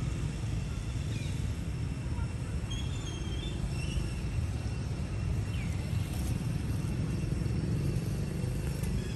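Steady low outdoor rumble with a few faint, short bird chirps scattered through it.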